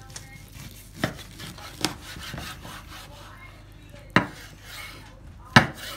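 A knife carving slices off a roast beef on a wooden cutting board: soft sawing strokes through the meat, with four sharp knocks as the blade strikes the board.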